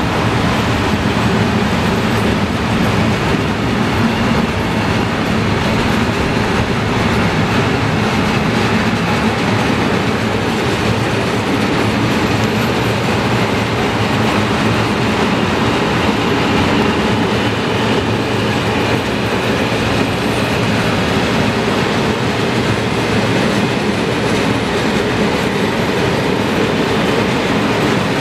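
A long freight train of empty open wagons rolling past close by: a steady noise of steel wheels running on the rails, with no pause.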